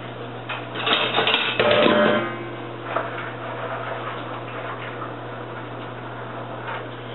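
Stainless steel cookware clanking, with a brief metallic ring about a second and a half in, then quieter scraping and clicks as penne is stirred in a pot of boiling water. A steady low hum runs underneath.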